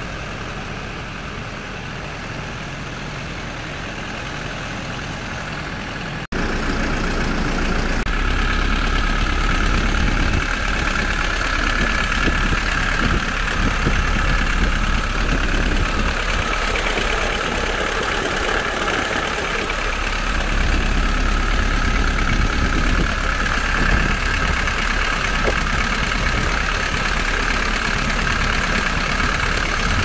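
Kia Bongo III truck's diesel engine idling steadily, heard close up at the engine bay. After a momentary dropout about six seconds in, it is louder.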